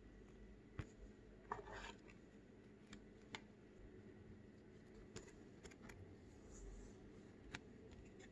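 Quiet handling of a sleeved trading card and a rigid plastic toploader: a short plastic rustle about a second and a half in and a few light clicks scattered through, over a low steady room hum.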